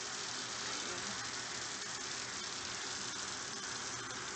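Kitchen faucet running a steady stream of water onto chopped beetroot in a wire mesh strainer in a stainless steel sink, rinsing the beets.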